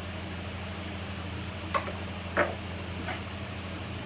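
Three light knocks of crockery on a kitchen worktop, about a second apart, the middle one the loudest, over a steady low hum.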